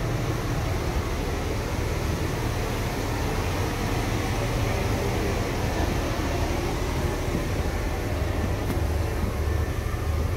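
Pirate boat's engine running with a steady low rumble.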